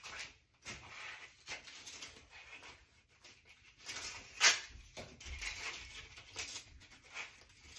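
Irregular short scrapes and knocks of hand work and tool handling at a stopped metal lathe, with one louder scrape about four and a half seconds in.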